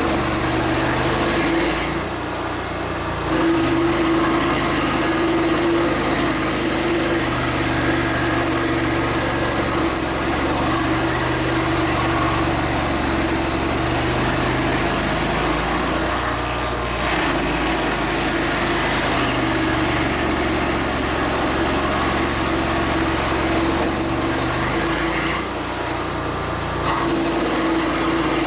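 Small engine running steadily, its note sagging briefly a few times.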